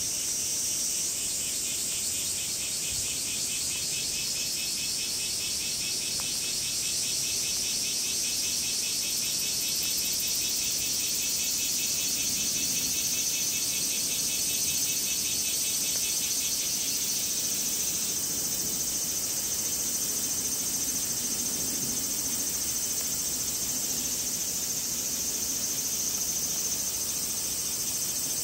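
Several cicadas buzzing together in a steady, high chorus. One pulsing call drops out about two-thirds of the way through.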